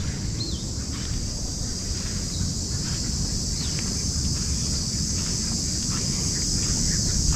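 Steady high-pitched buzzing chorus of insects, with a few faint bird chirps and a low rumble underneath.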